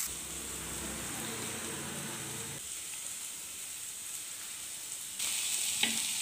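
Sliced onion, carrot, capsicum and green chilli sizzling as they sauté in a frying pan, with a steady hiss that gets clearly louder about five seconds in.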